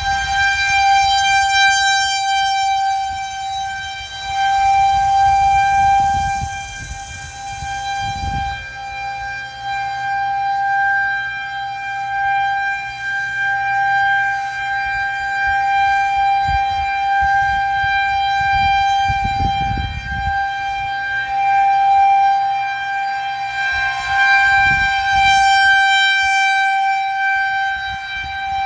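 Federal Signal 2001-130 electromechanical outdoor warning siren sounding a steady single-tone wail for a tornado warning, its loudness swelling and fading as the rotating head sweeps round.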